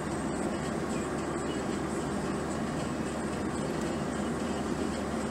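Steady road and engine noise of a car driving at an even speed, heard from inside the cabin.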